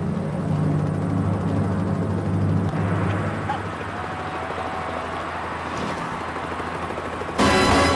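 Helicopter rotor and engine running steadily overhead. Loud music with drums cuts in suddenly near the end.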